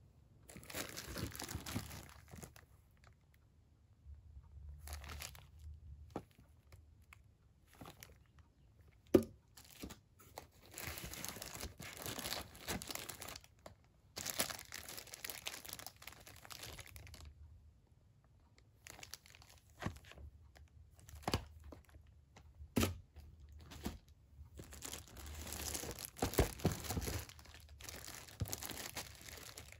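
Clear plastic packaging bags crinkling as plastic-wrapped retail boxes are handled and lifted out of a cardboard shipping box, in irregular spells with quiet gaps. A few sharp knocks of box against box come through, the loudest about a third of the way in.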